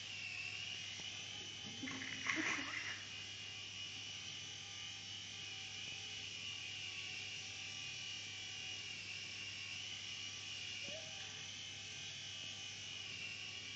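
Small remote-controlled toy helicopter flying: its tiny electric motor and rotor make a steady high-pitched whine. A short louder sound breaks in about two seconds in.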